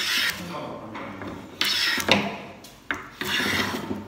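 Hand plane cutting a wooden board: three long shaving strokes, one about every second and a half, each a rasping swish, with a couple of sharp knocks between strokes.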